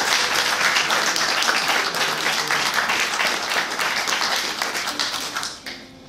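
Audience applauding, a dense steady clatter of many hands that thins out and fades near the end.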